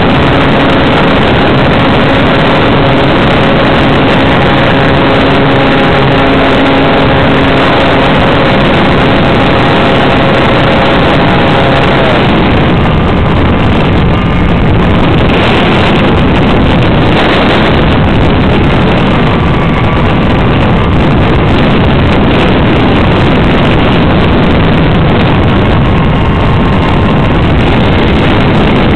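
Motor and propeller of a radio-controlled model Sopwith Camel in flight, heard loud from a camera on board, with heavy wind rush on the microphone. A steady motor note holds for the first dozen seconds; then the note changes and the wind rush takes over, with fainter higher tones coming and going.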